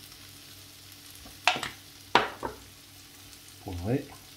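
Faint steady sizzle of sliced peppers and onion frying in a pan. Two sharp knocks on a wooden worktop come about a second and a half and two seconds in, then a short twist of a pepper grinder over the chicken near the end.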